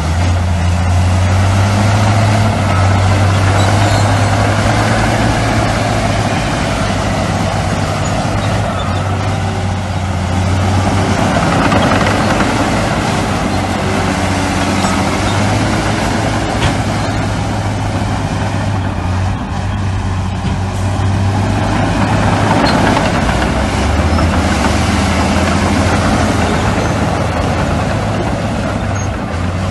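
Diesel engines of heavy earthmoving machinery, a bulldozer and dump trucks, running steadily with a strong low engine hum.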